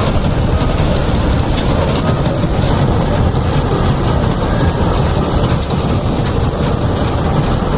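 Rice combine harvester running steadily as it cuts standing paddy, its engine and machinery giving a loud, continuous mechanical noise.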